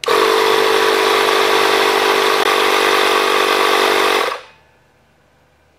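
Black & Decker BDINF20C 20V cordless inflator's compressor pump running loud and steady for about four seconds while filling an air tank to a preset 35 PSI. It then shuts itself off on reaching that pressure.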